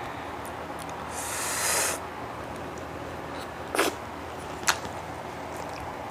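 Eating and table sounds: a short noisy hiss like a slurp about a second in, swelling and then stopping, followed by two sharp clicks.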